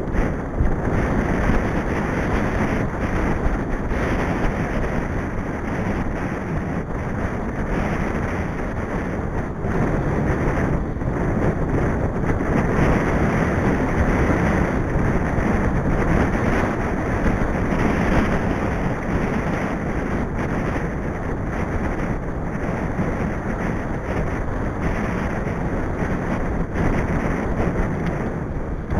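Steady wind noise buffeting the microphone of a camera riding on a moving mountain bike, mixed with the rush of tyres on a wet tarmac lane.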